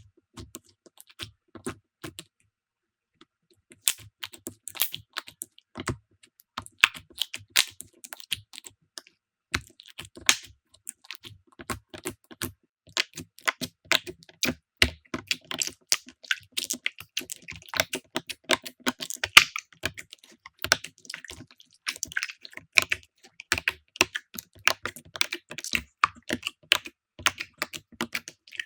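Slime being pressed and squeezed by hand, giving off dense, irregular sticky clicks and pops. It is sparse at first and becomes nearly continuous from about four seconds in.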